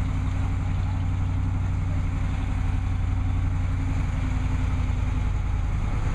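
A vehicle engine idling steadily, a low even hum with a fixed pitch.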